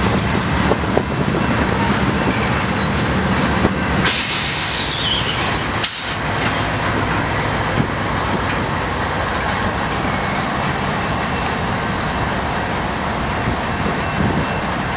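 Freight train cars rolling slowly past with a diesel locomotive's steady rumble. A short hiss of air comes about four seconds in.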